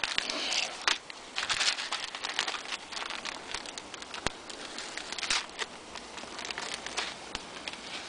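Crinkling and rustling of foil-lined soup-mix packets being handled and cut open, with irregular sharp clicks and crackles.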